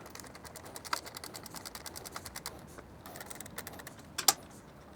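Ratchet wrench clicking rapidly, about six clicks a second, as a 12 mm nut is backed off a muffler mounting bolt, with one louder metallic clink a little past four seconds in.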